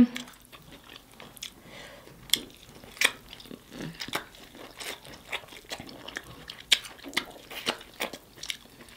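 A person biting and chewing corn on the cob: irregular crunches and sharp mouth clicks.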